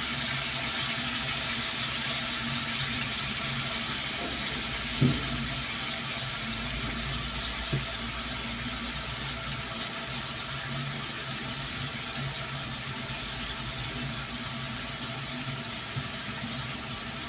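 Chicken sizzling steadily in a frying pan over a low steady hum. A sharp knock comes about five seconds in, with lighter knocks near eight and sixteen seconds.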